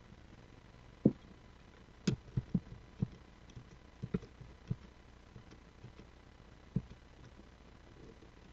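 Faint computer keyboard typing and mouse clicks: short, dull taps coming a few at a time in small groups, over a low steady hiss.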